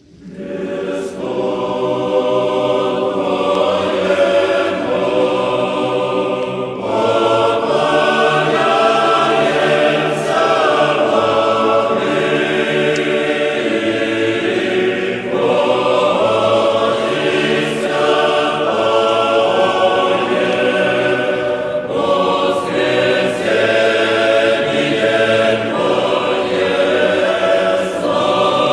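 A choir chanting in slow phrases of held notes, several voices together, with short breaks between phrases every few seconds.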